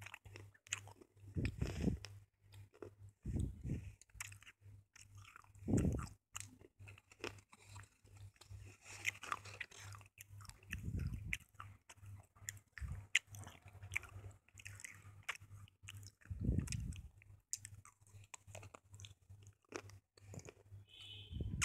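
Slate pencils being bitten and chewed close to the microphone: a run of crisp crunches and gritty crackles, broken every few seconds by a dull low thud, over a faint steady hum.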